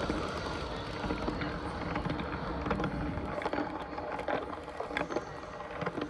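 Motorised LEGO train rolling past on plastic track and moving away: a steady rumble of wheels with scattered sharp clicks.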